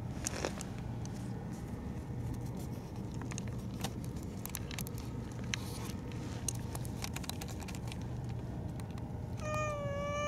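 A tabby-and-white domestic cat gives one long meow near the end, held steady and dropping in pitch as it ends. Under it runs a steady low hum with scattered faint clicks.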